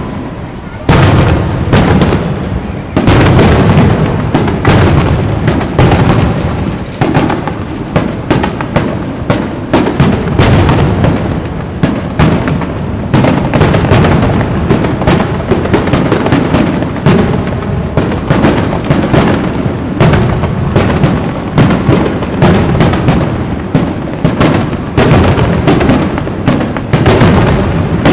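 Aerial fireworks shells bursting in a rapid, continuous barrage, booms and crackles overlapping almost without a pause: a display's closing finale.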